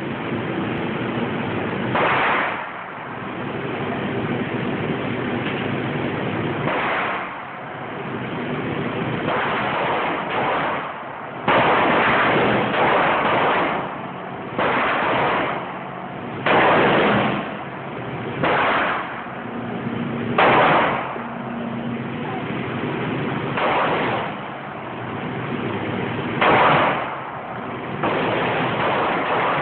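Pistol shots fired one at a time in an indoor range, about a dozen at uneven gaps of one to several seconds, each with a long echo off the range walls.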